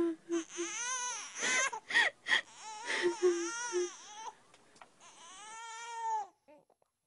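An infant crying: a series of high-pitched wails, each rising and falling in pitch, with the last and longest cry breaking off about six seconds in.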